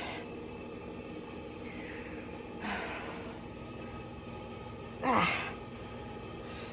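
A woman's breathy sighs and gasps at the cold of an ice cube down the back of her shirt. There is a long breathy exhale about three seconds in, and a louder, short vocal whimper falling in pitch about five seconds in.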